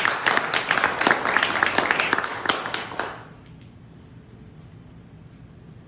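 A small audience clapping, the claps distinct and irregular, dying out about three seconds in.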